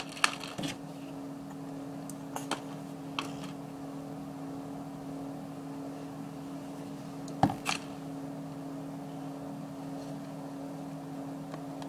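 A steady low electrical hum in the room, with a few small clicks and taps of plastic craft pieces being handled; the loudest are two clicks close together about seven and a half seconds in.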